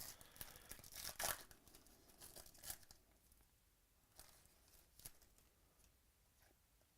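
Faint crinkling and rustling of trading-card pack wrappers and cards being handled, loudest just over a second in and dying away after about three seconds, with two faint ticks later.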